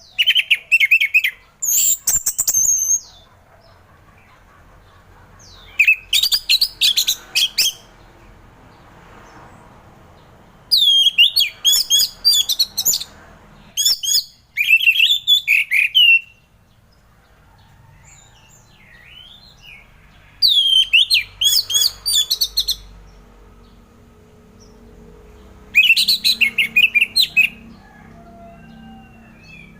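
Orange-headed thrush singing full song: six rich, fast phrases of quick rising and falling notes, each lasting a second or two, with pauses of a few seconds between them.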